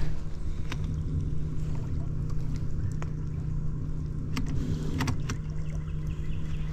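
A steady low hum from a small motor, with a few short light clicks and knocks scattered through it.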